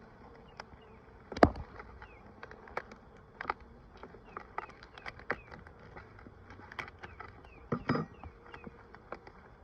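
Honeybees from a package buzzing as a steady hum, with scattered clicks and knocks from handling the package while the queen cage is worked out. The sharpest knock comes about a second and a half in, with another cluster near the end.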